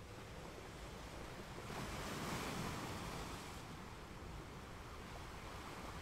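Gentle ocean waves on a calm sea: a steady low wash of surf, with one wave breaking and hissing in about two seconds in, then fading away by the middle.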